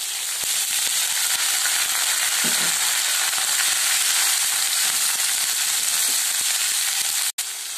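Chopped winged beans sizzling in hot oil as they are tipped into a nonstick kadai and stirred with a metal spoon, with small clicks of the spoon against the pan. The sound cuts out for an instant near the end.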